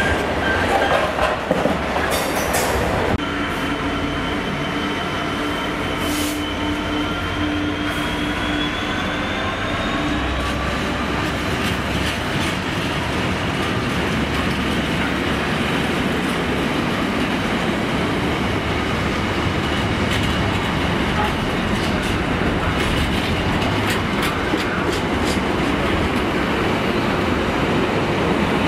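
Freight train wagons rolling past on the rails, wheels clattering and rumbling over the track. From about three to eleven seconds in, a steady hum and a slowly rising whine sound over the rolling.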